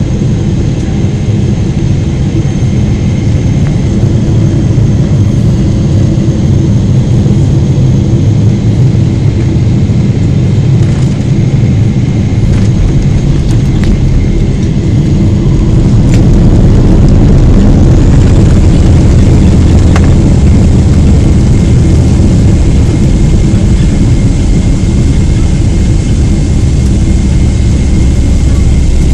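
Boeing 777-300 jet engines and airflow heard from inside the cabin during landing: a steady low rumble, which gets louder and brighter about 17 seconds in and stays up as the plane rolls down the runway, typical of reverse thrust after touchdown.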